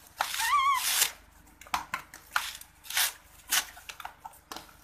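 Coconut husk fibres being ripped away with teeth and hands: a long tearing rip in the first second, with a short wavering high tone over it, then about five shorter rips.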